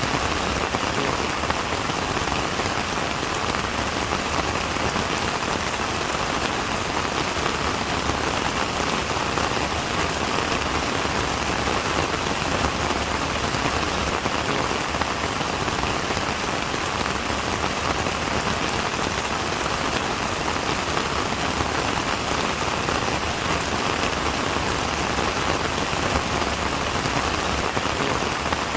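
Steady rain falling, an even hiss of many drops pattering on a surface without letting up.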